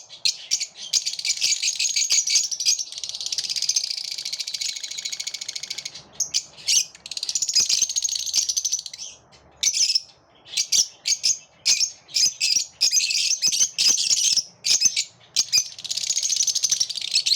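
A flock of lovebirds chirping and chattering together: quick, sharp, high chirps broken by longer stretches of continuous twittering, with a short lull about ten seconds in.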